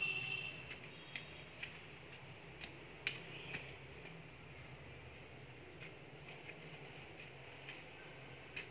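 Small metal hand trowel digging and scraping in garden soil: irregular light clicks, one or two a second, over a steady low hum. It opens with a brief high-pitched squeak.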